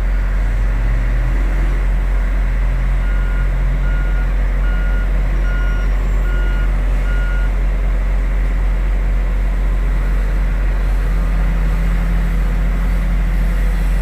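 Heavy diesel machinery running steadily with a deep rumble, while a reversing alarm beeps about six times at an even pace a few seconds in.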